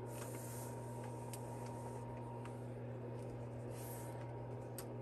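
Quiet room tone with a steady low electrical hum, and a few faint soft ticks and a light rustle as yarn and a yarn needle are drawn through knitted fabric.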